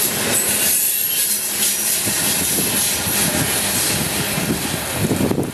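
Loaded coal hopper cars of a freight train rolling past on steel wheels, a dense clatter and hiss of wheels on rail. The noise eases off slightly as the last car goes by and the train moves away.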